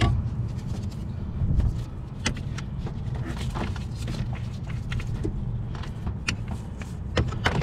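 Scattered clicks and light knocks of hand work on small parts and gear, over a steady low rumble.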